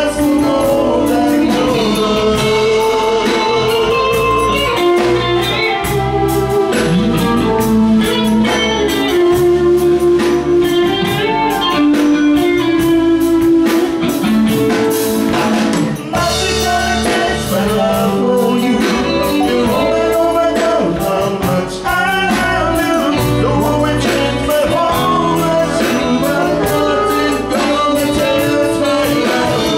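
Live band playing a soul-pop cover: a singer's held, wavering vocal lines over electric guitar, bass and drum kit.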